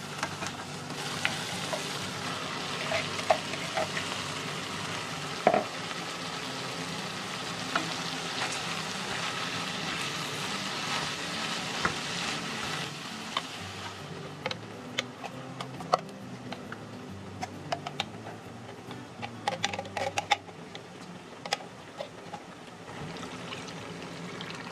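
Curry paste and dried fish sizzling in a saucepan, stirred with a wooden spatula that scrapes and taps against the pan. About 14 seconds in the sizzling dies down once fresh dandelion greens are in the pan, leaving frequent sharp spatula clicks, and near the end coconut milk is poured in.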